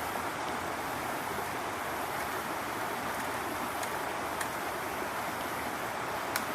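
Floodwater rushing steadily after heavy rain, an even wash of noise with a few faint clicks on top.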